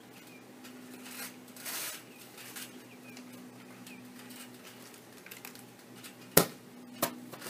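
A person moving barefoot on a backyard trampoline makes faint rustling and shuffling sounds over a low steady hum. Near the end come two sharp knocks about half a second apart, the first the loudest.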